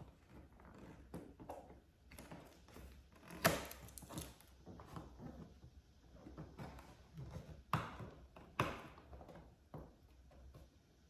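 Cardboard box being handled while its packing tape is picked at and pulled by hand: scattered scratches, rustles and clicks, with a sharp knock a few seconds in and two more a little after the middle.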